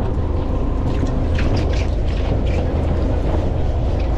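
Small fishing boat's engine running steadily with a low hum, with wind on the microphone and scattered short scuffs of a cloth wiping the deck.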